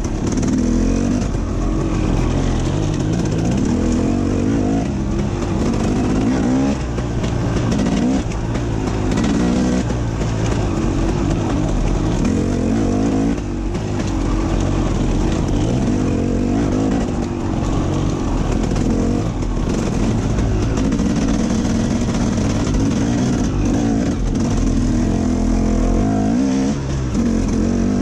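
KTM 250 EXC enduro dirt bike engine, heard close from on the bike, revving up and down continuously as it is ridden along a twisting trail.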